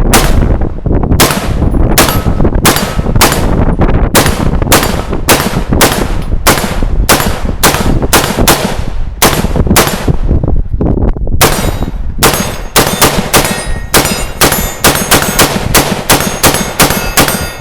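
Gunfire: a long string of about forty shots at roughly two to three a second, pausing for about a second near ten seconds in before the shooting resumes at a quicker pace.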